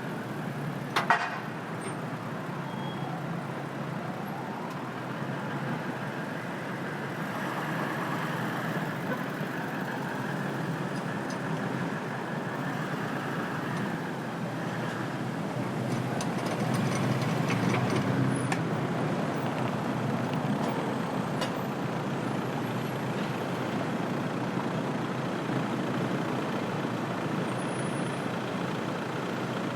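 Busy city street ambience: steady traffic noise from passing cars and heavy vehicles. A sharp clack comes about a second in, and a heavier vehicle passes, louder, a little past the middle.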